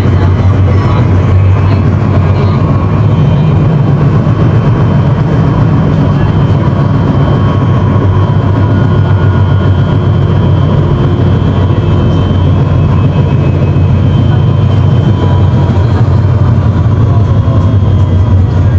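Boat engine running steadily at a constant speed, a loud low drone that does not change.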